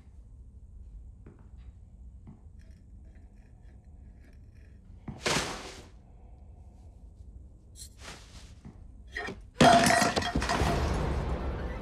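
Near-quiet tension with faint scattered ticks, a short sharp swish about five seconds in, then a sudden loud crash of something shattering near the end, with a noisy tail of breaking and falling pieces.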